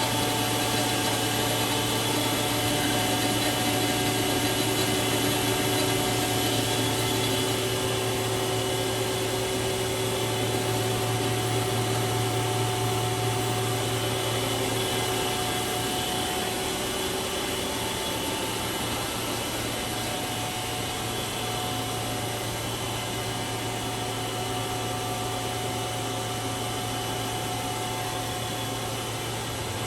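Haas HL-6 CNC lathe running: a steady machine hum with several whining tones over a hiss, easing a little in the second half as one tone drops out.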